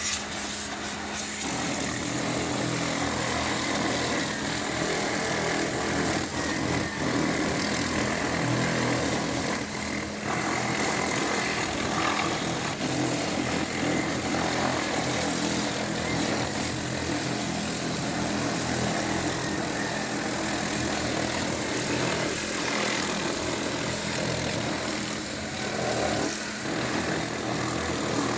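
Power sprayer running steadily, its high-pressure water jet hissing as it washes down an engine.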